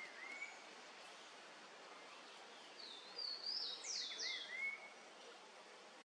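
Forest ambience with wild birds calling: a faint steady hiss, a few short arched whistles, and about three seconds in a quick run of high sweeping notes, the loudest sound here.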